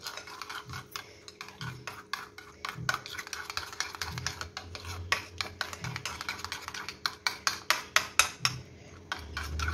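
A spoon stirring thick mayonnaise and chili garlic sauce in a small bowl, clicking and scraping against the bowl in a quick, uneven run of taps that grows sharpest near the end.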